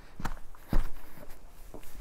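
Footsteps on stony ground, about two steps a second, the second step the loudest.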